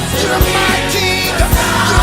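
Gospel choir song with a full band: drum hits and bass under singing voices.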